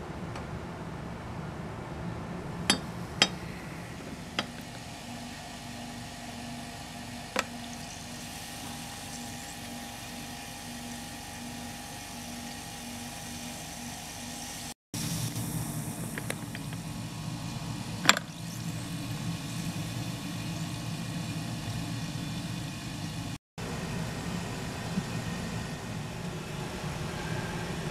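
Coca-Cola poured from a glass bottle into a small glass and fizzing, with a few light glass clinks and clicks over a steady low hum. A single sharp click about two-thirds of the way through is the loudest sound.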